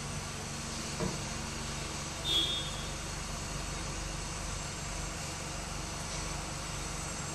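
Steady low mechanical hum, with a single click about a second in and a brief high squeak about two and a half seconds in.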